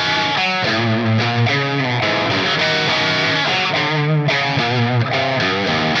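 Soloking MS-1 Classic Flat Top HSS electric guitar played with an overdriven tone: strummed chords and short riffs that change about every half second, with vibrato on some notes.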